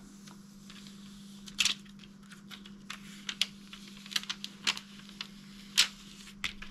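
Scattered light clicks and taps, a handful of sharper ones, from handling a metal bookmark while peeling the transfer tape off freshly burnished vinyl lettering, over a faint steady low hum.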